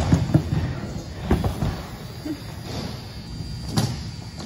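A BMX bike and rider crashing onto a ramp deck: thuds and the clatter of the bike tumbling at the start, with a few more sharp knocks about a second in and near the end.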